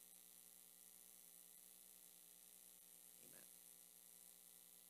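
Near silence: a faint, steady electrical hum and hiss, with one faint, short, soft sound about three seconds in.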